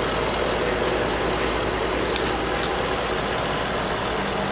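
Ford F-150 FX4 engine idling steadily under the open hood. It runs quietly, with quiet lifters and exhaust and no ticking.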